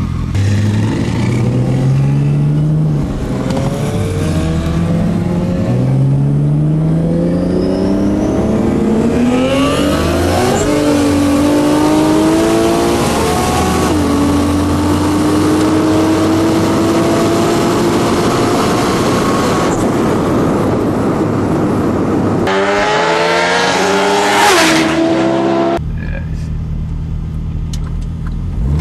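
High-performance engine accelerating hard through the gears: its note climbs and drops back at each upshift, then climbs slowly at high speed. Near the end it revs up steeply, then cuts abruptly to a lower steady run.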